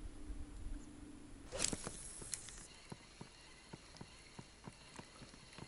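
A brief swish, then a spinning reel being wound, ticking faintly and regularly at about three clicks a second.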